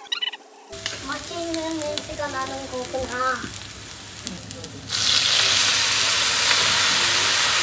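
Food frying in a hot pan: a quieter sizzle with light clicks at first, then a loud, steady sizzle starting about five seconds in.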